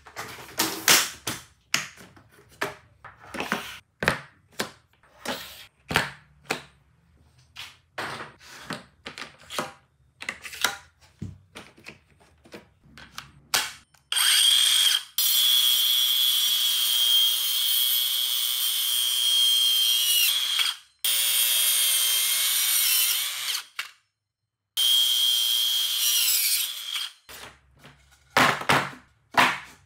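A run of sharp, irregular plastic clicks and knocks as a Worx Pegasus folding work table is unfolded and locked open. About halfway through, a Worx WorxSaw compact cordless circular saw with a 120 mm blade runs at a steady high whine, cutting wood in three stretches. Near the end come more knocks as lumber is set down on the table.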